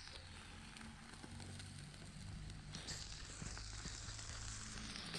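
Wood fire under a barbecue grill crackling faintly, with scattered small pops over a steady low hiss.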